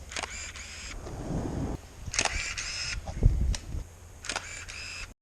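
Canon EOS 500N film SLR taking three shots about two seconds apart: each shutter click is followed by a short whir of the built-in motor winding the film on. A low thump comes about midway.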